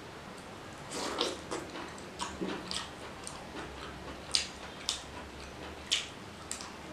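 Close-miked hand-eating sounds: fingers mixing rice and mutton curry on a steel plate, then a mouthful being taken and chewed. They come as a run of sharp, irregular clicks starting about a second in.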